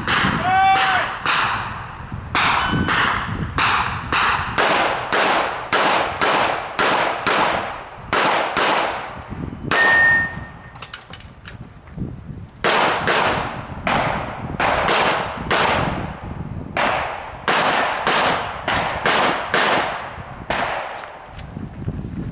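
Rapid pistol fire: shots in quick pairs and strings, about two to three a second, broken by brief gaps between strings and a longer pause about eleven seconds in.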